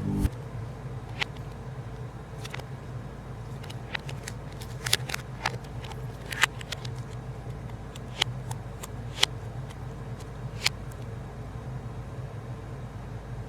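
Scattered sharp clicks and pops from slime, mini balloons and small toys being handled, over a steady low hum.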